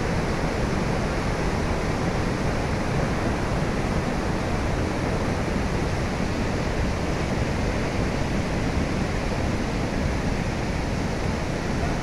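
Large river waterfall pouring heavy, muddy water into its plunge pool: a steady, unbroken rush of falling and churning water.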